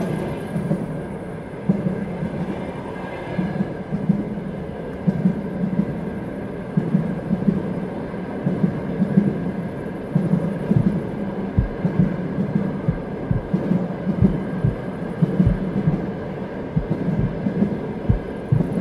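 A low, throbbing rumble that swells and fades unevenly, joined by deep irregular thumps in the second half.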